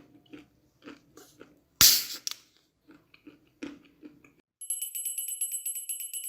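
Home-recorded kitchen sound effects: a run of short, irregular knocks, with one loud sharp hit about two seconds in. From about four and a half seconds a bell rings in fast, even strikes, about seven a second.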